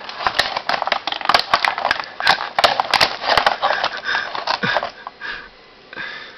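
Hard plastic clicking, scraping and rattling in the hands as a small plastic toy gun is worked free of a bootleg Transformers figure's packaging. A rapid, dense run of clicks dies down about five seconds in.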